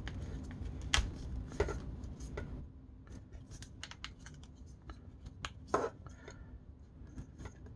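Hard plastic parts of an Acid Rain Waterstrider toy walker clicking and rubbing as its legs and joints are folded and handled, with scattered small clicks, a louder click about a second in and another near six seconds.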